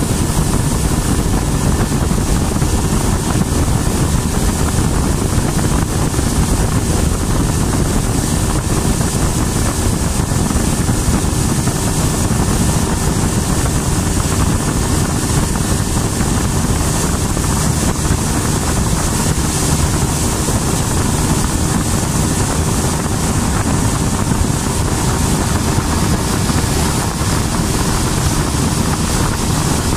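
Motorboat engine running steadily while the boat is under way, with wind on the microphone.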